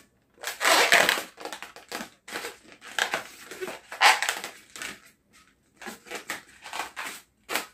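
Long latex modelling balloon being twisted and handled, its rubber rubbing and squeaking in a run of short irregular bursts, loudest about a second in and again about four seconds in.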